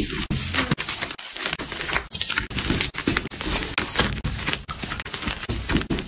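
Plastic-wrapped Nepia facial tissue soft packs being handled and stacked on a shelf: the film wrap crinkles and rustles steadily, with many short knocks and scuffs as packs are pushed into place.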